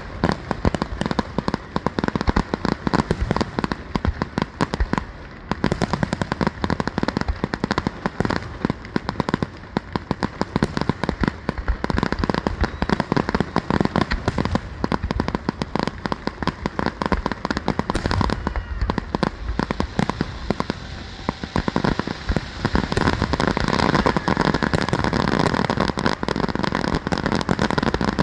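Fireworks going off in a long barrage: a dense, continuous crackle of rapid pops and bangs, growing louder near the end.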